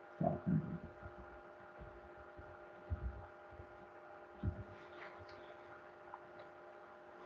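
Faint steady electrical hum of several fixed tones, with a few soft low thumps, two together in the first second and single ones at about three and four and a half seconds.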